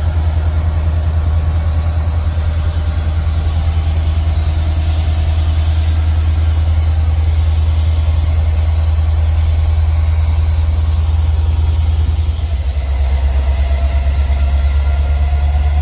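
EMD SD70ACu diesel locomotive's 16-cylinder two-stroke engine running at low throttle as it moves past close by, a loud, steady deep throb.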